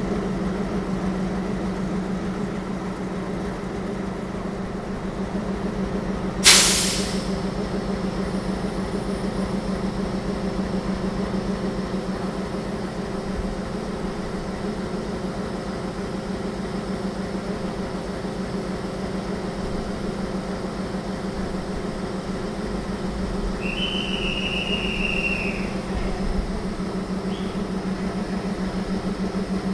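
Electric train running with a steady low electric hum. About six seconds in there is a short, loud burst of hiss, and near the end a high tone is held for about two seconds.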